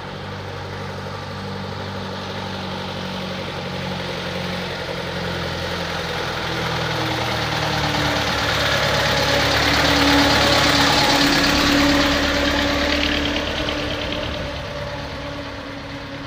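Engine of a vintage bus running as it drives slowly closer, growing louder until it passes close by about ten seconds in, then fading as it moves away.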